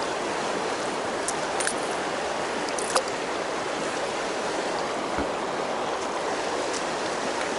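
River water flowing steadily, an even rushing noise, with a few faint clicks over it, the sharpest about three seconds in.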